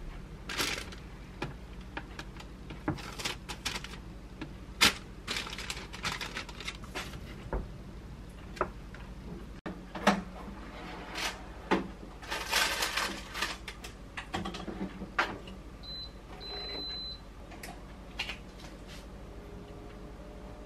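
Parchment paper crinkling and light taps as rolls are arranged on a wire air fryer basket. Then comes a clatter as the metal basket slides into a countertop air fryer oven and the door shuts. The oven's control panel then beeps twice, the second beep longer, as it is set to 180°C.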